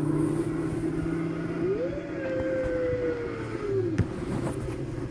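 A car's engine droning steadily while cruising, played back from a television. Partway through, a gliding tone rises, falls slowly, then cuts off with a click.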